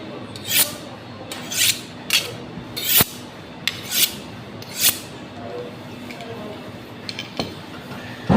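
Butcher knife blade drawn in short scraping strokes across a sharpener, about one stroke a second, with a sharp click about three seconds in; the strokes grow fainter and sparser after about five seconds.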